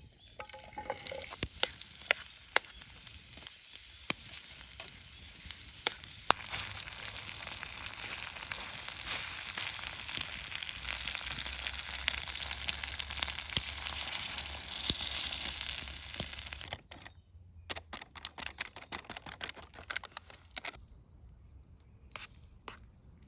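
Food frying in a hot pan: a dense sizzle with frequent sharp pops and spits, cutting off suddenly about 17 seconds in, after which a few scattered crackles remain.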